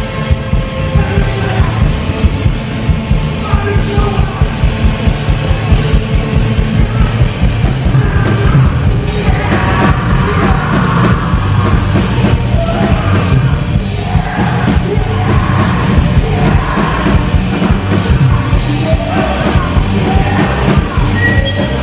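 Live rock band playing loudly, a pounding drum beat under keyboard, with yelled, shouted vocals coming in about eight or nine seconds in.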